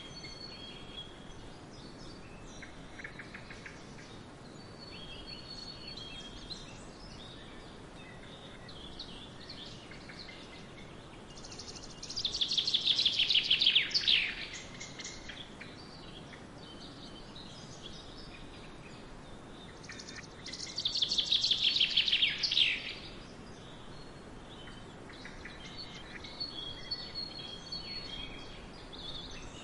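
A songbird sings twice, each song a loud, fast trill that falls in pitch over about two seconds, once near the middle and once about two-thirds through. Between the songs are scattered quieter bird chirps, over a steady low rush of wind through a grain field.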